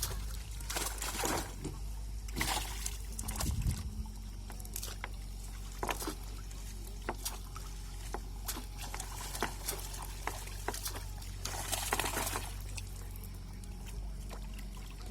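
Water splashing and trickling in irregular bursts, with several louder splashes and many small drips and ticks between them.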